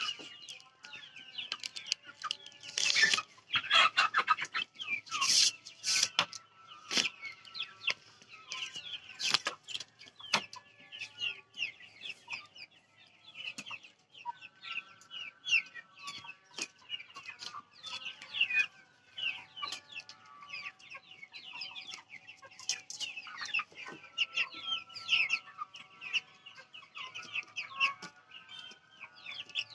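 A flock of Vanaraja chickens, mostly hens, clucking and calling continuously, many birds at once. There are a few louder calls about three to six seconds in.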